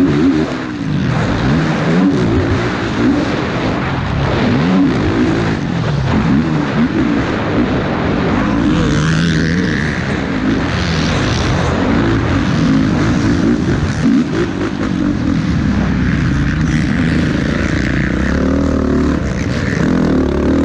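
Yamaha YFZ450R's single-cylinder four-stroke engine under race throttle, its pitch rising and falling every second or two as the rider opens and closes the throttle and shifts through the gears.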